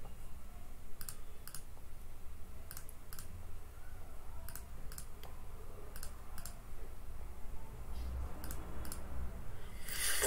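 Sharp clicks of a computer's controls, mostly in pairs about half a second apart and spaced a second or two apart, over a low steady hum. A short, louder burst of noise comes near the end.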